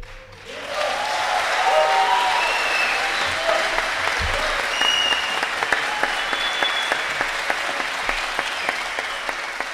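An audience applauding, starting just after the music stops and continuing steadily, with a few shouts and whistles over the clapping.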